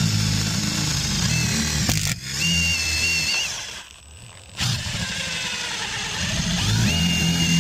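Cordless drill with a long bit boring a pilot hole through wooden wall sheathing, the motor labouring under load with a whine. It stops briefly about halfway, then starts again.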